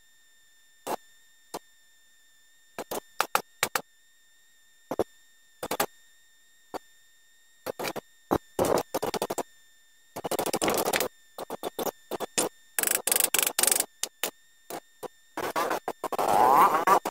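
Metal-on-metal clicks and knocks, then several rasping scrapes of about a second each, growing louder toward the end, as a bicycle stem is twisted and worked loose from a suspension fork's steerer tube.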